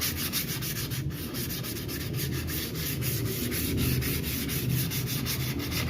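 Sandpaper rubbing over a model boat hull in fast, even strokes, about eight a second, making a continuous rasping.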